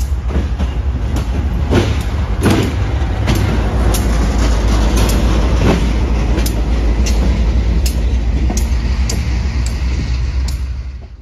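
A GE B40-8 diesel locomotive running light past at low speed. Its engine gives a steady low rumble, and its wheels click regularly over the rail joints, about once every 0.7 s. The sound is loudest as it passes close and cuts off near the end.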